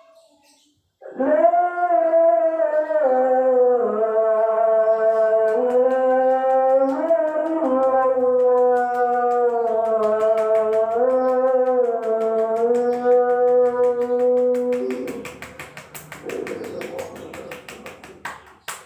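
A long, unbroken vocal tone held for about fourteen seconds, stepping up and down in pitch several times, then breaking into rough, ragged noise near the end.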